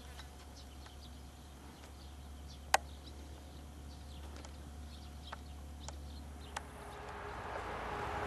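Quiet outdoor background with a steady low hum and a few scattered clicks, the sharpest about three seconds in. A hiss rises near the end.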